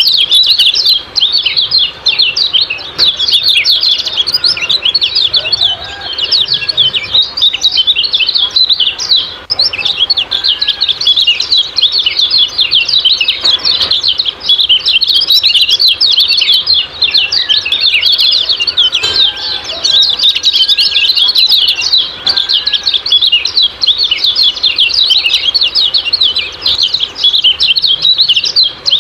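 Kecial kuning birds calling 'ciak-ciak' in a fast, unbroken stream of short, high chirps, many overlapping, as in a birdsong lure (masteran) recording. A few fainter, lower whistles come through now and then.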